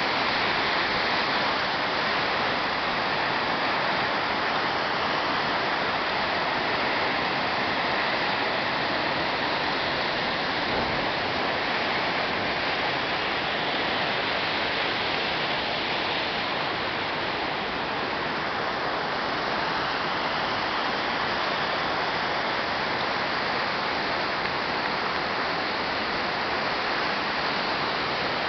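Chorrillo del Salto waterfall and the stream below it: a steady, unbroken rush of falling and running water.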